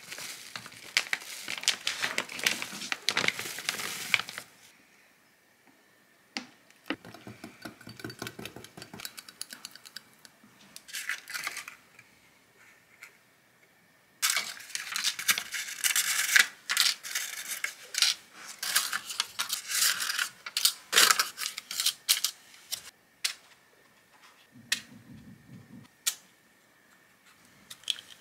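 Kitchen handling noises: spells of rustling, tapping and clinking with short pauses between, the busiest in the middle and a few single clicks near the end.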